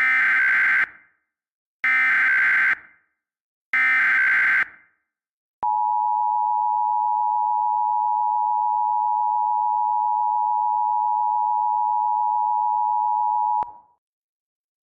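Emergency Alert System header: three buzzy, warbling data bursts of about a second each, followed by the EAS two-tone attention signal held steady for about eight seconds. It is the signal that opens a new emergency alert message.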